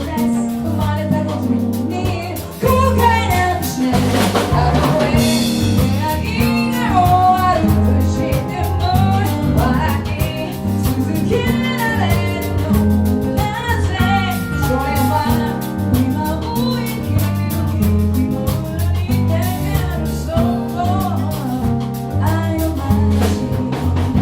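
Band music: a repeating bass line under a melodic lead that slides in pitch.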